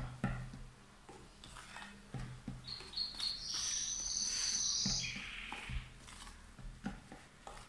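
Hand wire whisk beating sponge-cake batter in a plastic bowl: irregular taps and scrapes of the whisk against the bowl. A high-pitched chirping sound runs for about two seconds in the middle.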